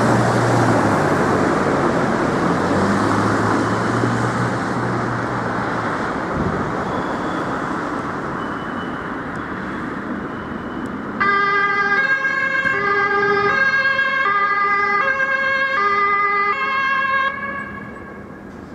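Road traffic and a passing vehicle's engine, then about eleven seconds in a German two-tone emergency siren (Martinshorn) on a Red Cross emergency vehicle switches back and forth between a high and a low note, about every two-thirds of a second, for some six seconds before cutting off suddenly.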